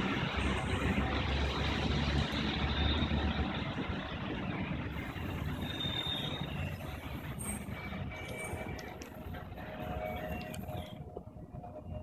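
Steady noise of road traffic, with a heavier low rumble over the first three seconds or so that then fades, the overall level easing off toward the end.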